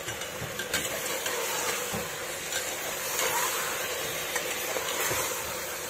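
Mutton and spice masala sizzling and steaming in a pressure cooker just after a splash of water has gone in, with a steady hiss and a few soft knocks from the ladle stirring it. This is the masala being fried down with water until the oil separates.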